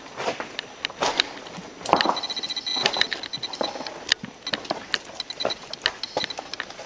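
Footsteps and scuffs on a rough trail: irregular knocks and clicks. About two seconds in, a rapid run of high, evenly spaced chirps lasts for over a second.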